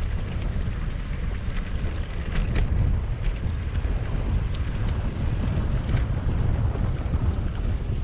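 Wind buffeting the microphone: a steady low rumble with a few faint ticks over it.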